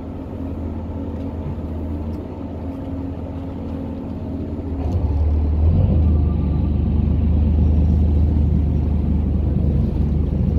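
Tour boat's engine running with a steady low hum, growing louder and rougher about halfway through.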